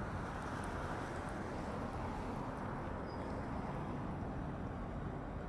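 Steady low outdoor background rumble with no distinct event.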